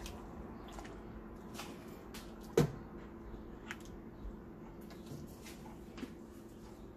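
Soup being ladled from an enamel pot into a ceramic bowl: light knocks and clicks of the ladle and bowl against the pot, with one sharper knock about two and a half seconds in, over a faint steady hum.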